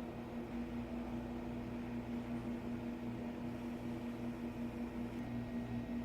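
Gatan 656 dimple grinder's small electric motors running: a steady hum with a slow regular pulse, about one and a half pulses a second. A lower rumble comes in about half a second in.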